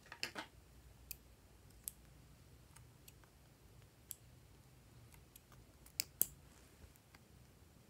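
Small metal scissors snipping slices off lip balm sticks, heard as scattered sharp clicks about once a second, the loudest two close together about six seconds in. A short clatter of plastic lip balm tubes being handled comes at the start.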